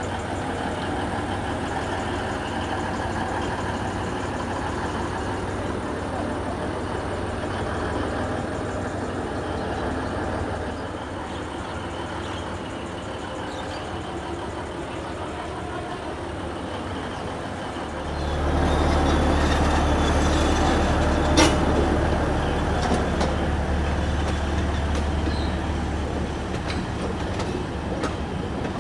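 Narrow-gauge Alishan Forest Railway train running, with steady rolling noise. About two-thirds of the way through, a much louder steady low rumble sets in, and a single sharp click is heard a few seconds later.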